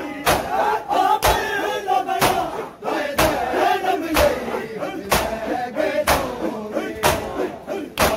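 A large crowd of men chanting a mourning lament together while beating their chests in unison (matam). A sharp collective slap lands about once a second in a steady rhythm.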